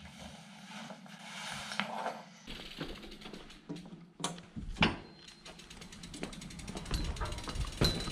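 BMX rear hub freewheel ratchet clicking rapidly as the wheel turns without pedalling, starting about halfway through. Before it come handling noises and a single sharp knock, the loudest sound here.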